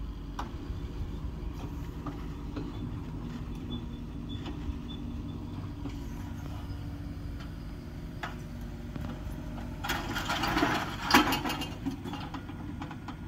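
Mini excavator's diesel engine running steadily at a distance. About ten seconds in comes a burst of clattering and crashing as demolition debris, metal siding and wood, is dropped, with one loud bang near its end.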